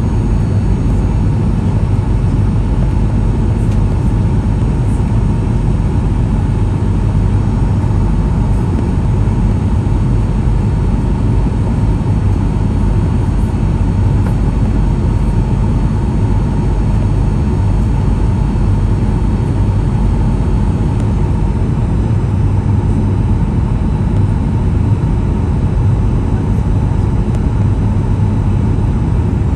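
Steady cabin noise inside a Boeing 737-800 on descent: a deep rumble of airflow and its CFM56-7B turbofan engines, with faint steady whining tones above it. One of the high whines drops out about two-thirds of the way in.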